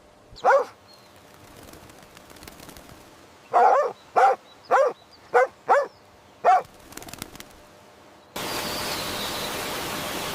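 Short animal calls: one call, then six more in quick succession about three seconds later. About two seconds before the end, a steady hiss of noise takes over.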